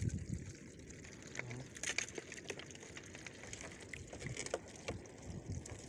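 Water lapping gently around a small boat, with scattered light clicks and taps as a net crab trap and live blue crabs are handled on bamboo slats.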